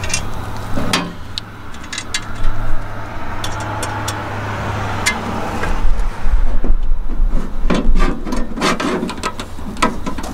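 Scattered clicks and knocks of a metal storage tray being held against the steel lockbox wall and Phillips screws being driven with a hand screwdriver. About six seconds in, a low rumble joins under the knocks.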